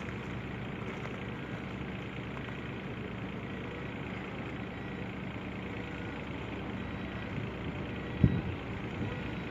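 Backhoe engine running steadily, with a single sharp low thump about eight seconds in.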